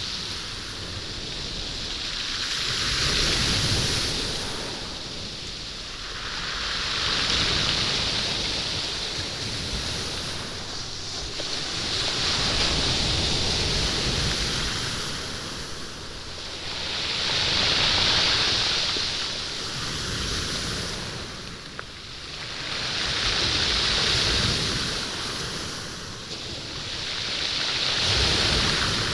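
Waves washing in and drawing back over a beach of stones, rolling and rattling the stones with each surge. The wash swells and fades in a slow rhythm, about six surges, each roughly five seconds apart.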